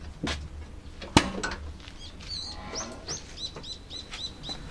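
Two sharp metal clunks, the second the louder, as the Land Cruiser 80's rear swing-out carrier is unlatched and swung open. Then a small bird chirps the same short note over and over, about three times a second.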